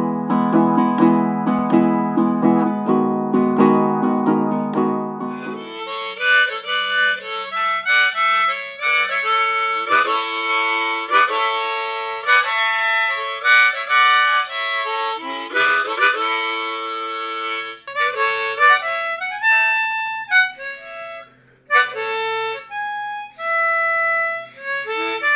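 A baritone ukulele strummed for about the first six seconds, then a harmonica playing a melody of single held notes, some bent down and back in pitch, with a brief pause near the end.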